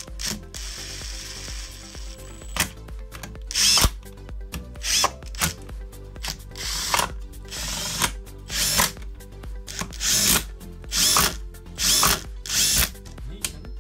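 Cordless drill-driver running the bolts into a two-stroke engine's crankcase: one longer run about half a second in, then about eight short spurts, each rising and falling in pitch.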